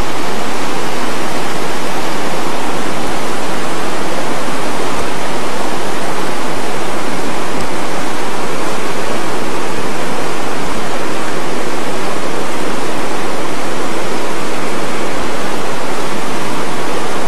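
River water rushing in a loud, steady roar close to the microphone.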